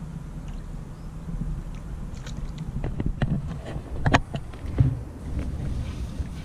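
A hooked bream splashing and thrashing at the water's surface as it is drawn in on the line: a series of sharp splashes from about two seconds in, the loudest just after four seconds, over a low rumble of wind on the microphone.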